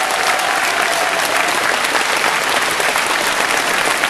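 Theatre audience applauding, joined by the cast on stage: dense, steady clapping.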